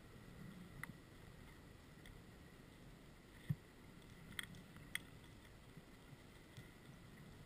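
Near silence heard through an underwater camera: a faint muffled background with a few small clicks, one about a second in and two close together later, and a single brief low thump near the middle, which is the loudest.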